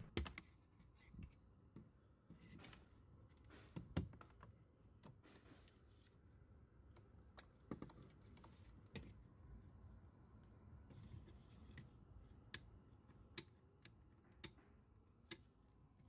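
Faint, irregular plastic clicks from a power window switch being rocked up and down and a test light probe being worked into the back of its connector.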